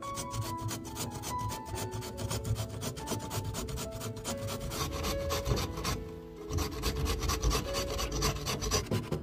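Raw peeled potato grated on a flat stainless steel hand grater: a fast run of rasping strokes, with a brief pause about six seconds in.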